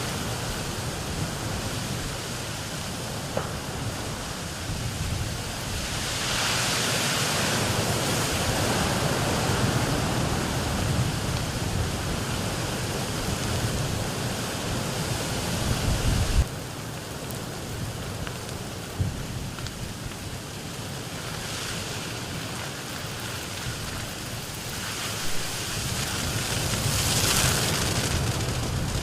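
Strong wind rushing and gusting around a wildfire, a steady roaring noise that swells louder twice and drops suddenly about halfway through.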